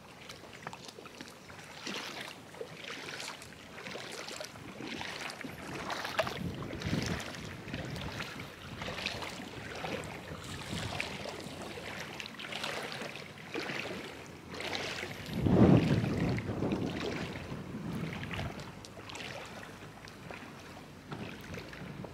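Small waves lapping and washing against the shore or boat hulls in uneven swells, with wind on the microphone and one strong gust past the middle.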